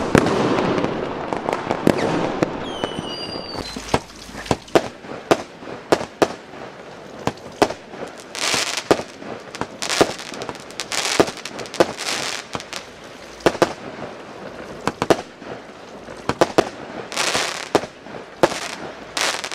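A 16-shot, 25 mm consumer firework cake firing. It opens with a loud rush of noise that fades over the first few seconds, then comes a long string of sharp, separate cracks, several of them followed by about a second of hiss.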